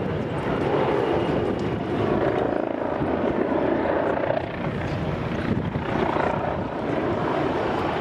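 Airbus A320's twin jet engines running at taxi power as the airliner taxis and turns: a steady jet rumble and whine that swells and eases slightly.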